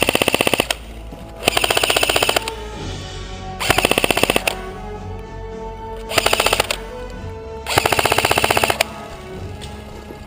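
Airsoft gun firing fully automatic bursts: five quick bursts of rapid shots, each about a second long, a second or two apart.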